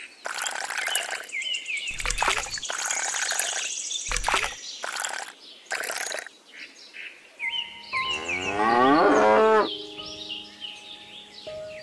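A cow mooing once, long and loud, about eight seconds in, with birds chirping around it. Earlier come a string of short knocks as small pebbles are set into the surface.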